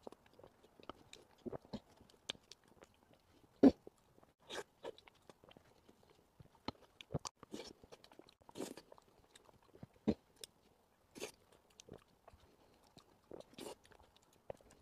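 Close-miked mouth sounds of someone eating soft, sticky sweet taro puree: scattered wet smacks and clicks of chewing, with one sharper click about four seconds in.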